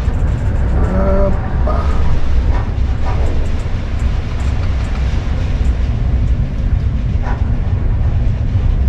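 Strong storm wind buffeting the microphone on an open ship's deck, a loud steady low rumble.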